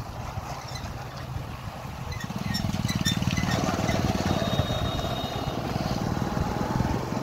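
Motorcycle engine running while riding, with wind and road noise; the engine note picks up and grows louder about two seconds in.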